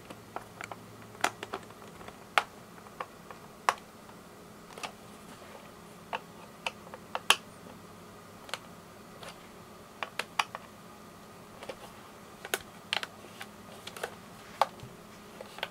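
Scattered sharp clicks and light taps of a small screwdriver in the screws of a Kodak EasyShare Series 3 camera dock's plastic housing, with the plastic case knocking in the hands as the dock is reassembled.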